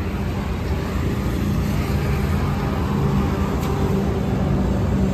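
Tata truck's engine running steadily at low revs, getting slightly louder toward the end.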